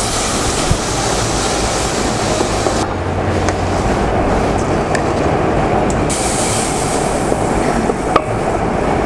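Water just added to spice paste frying in hot oil in a pan, sizzling and bubbling steadily.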